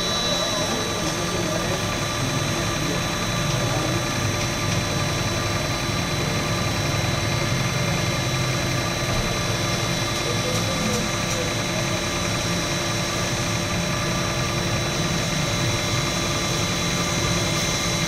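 Mini cold oil press (screw expeller) running steadily: a continuous machine hum with a constant high whine.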